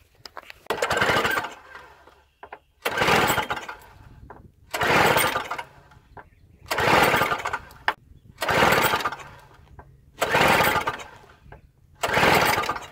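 A single-stage snowblower's recoil starter is pulled seven times, about every two seconds, each pull a whirring rasp of about a second. The engine never fires, because its spark plug wire is off the plug.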